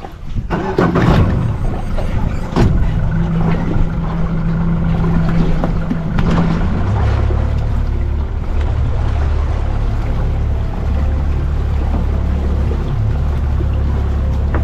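A boat's motor running steadily, with a few knocks in the first seconds. About halfway through its drone turns deeper and louder.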